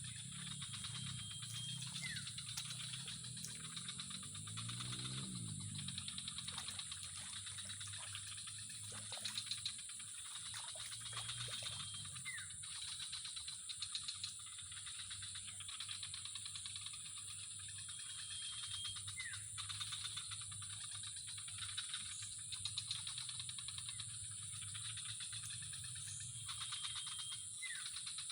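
Chorus of calling animals: a steady high-pitched drone with a fast rattling trill over it, and a short high note followed by a brief rising chirp repeating about every seven to eight seconds.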